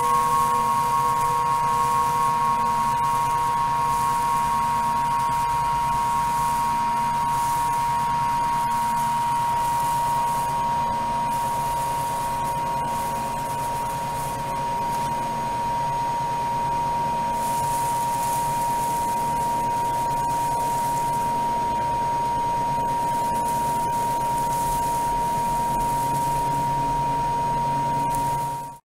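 A steady, high-pitched, sine-like tone held throughout, joined by a second, slightly higher tone for about the first nine seconds, over faint low pulsing. It cuts off suddenly at the end.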